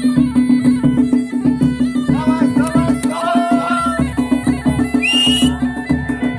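Kumaoni wedding band music: a mashakbeen (Himalayan bagpipe) holding a steady drone and playing a melody over quick, even dhol and damau drumbeats.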